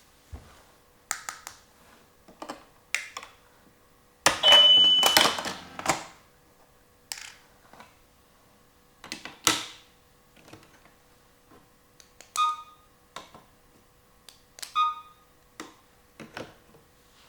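Small plastic toy pieces being handled: scattered clicks and knocks, a louder rattling stretch about four seconds in with a short high beep, and two brief electronic blips from the toy cash register's buttons near the end.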